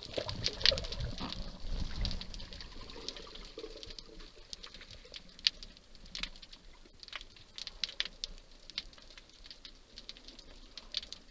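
Underwater ambience picked up by a camera in its housing: irregular sharp clicks and crackles, a few a second, over a faint hiss. For the first two seconds a louder low rush of moving water lies under them.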